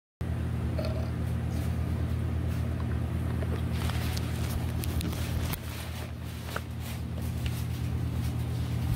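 A steady low mechanical drone with a pulsing, evenly banded hum, cutting in suddenly at the start and dipping about five and a half seconds in, with faint scattered clicks over it.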